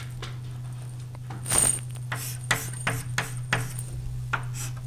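Chalk writing on a blackboard: a run of short, irregular taps and scratches as symbols are written, over a steady low hum.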